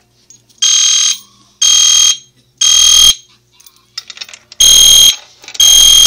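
EST Genesis two-wire horn strobe sounding the code-3 temporal fire alarm pattern, set off by a manual pull station: three loud, high-pitched electronic horn blasts of about half a second each, a pause of about a second and a half, then the next set of blasts begins.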